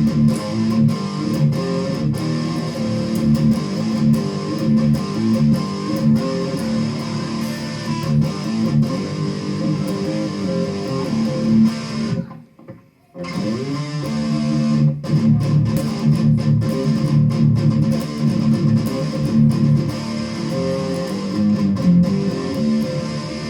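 Electric guitar played through a clone of the Revv G3 high-gain distortion pedal: distorted riffing with many picked and strummed notes, stopping briefly a little past halfway before starting again.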